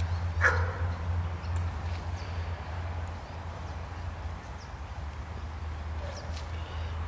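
A dog barks once, a short falling bark about half a second in, over a steady low hum.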